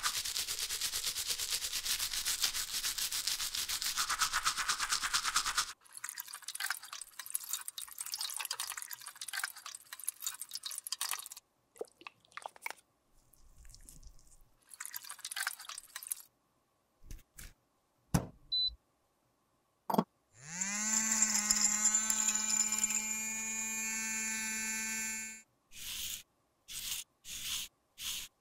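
A toothbrush scrubbing a wet plastic makeup compact with fast back-and-forth strokes, stopping about six seconds in and giving way to slower, sparser rubbing. Later two sharp clicks come, then a small electric motor spins up quickly and runs at a steady pitch for about five seconds before cutting off, followed by a row of light taps.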